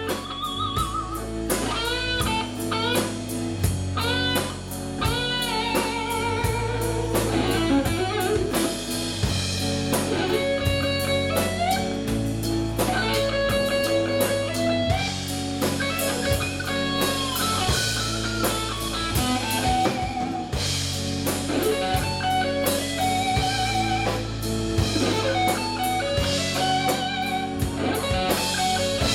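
Live southern rock band playing an instrumental passage: a lead electric guitar plays bent, gliding notes over a steady bass line and drum kit.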